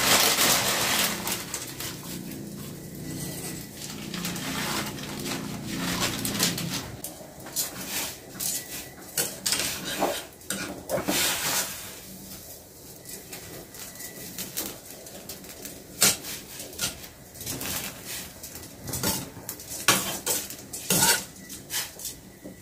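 Metal spoon clinking and knocking against a stainless steel saucepan as rice vermicelli is stirred into boiling water, in many separate irregular clinks. A steady hiss fills the first several seconds and then dies away.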